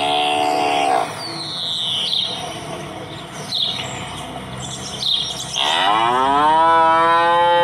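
Hungry cow mooing twice: a short call at the start and a longer call near the end that rises in pitch and then holds. Birds chirp briefly in between.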